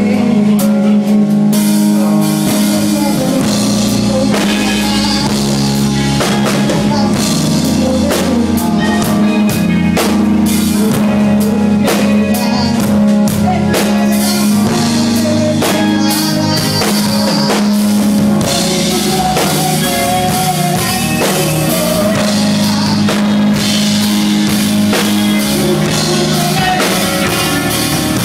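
Live worship band playing: drum kit with cymbals, electric bass and keyboard, with a woman singing into a microphone over the band.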